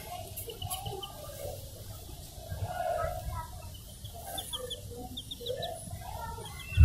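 Baby chicks peeping: short runs of quick, high cheeps, with a burst about half a second in, another around four to five seconds in, and more near the end.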